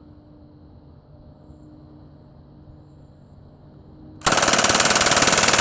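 A faint low hum for about four seconds, then a MAC-10 submachine gun fires on full auto: a fast, unbroken stream of shots dumping the magazine.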